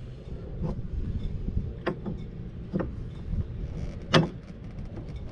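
A stainless steel clamp-on fishing rod holder knocking and clicking against a boat's ski tower tube as it is moved into position, a few sharp knocks with the loudest about four seconds in, over a low rumble of wind and water.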